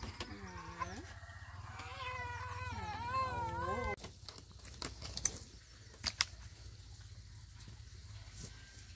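Baby crying in wavering wails for about four seconds, then quieting to faint clicks and rustles.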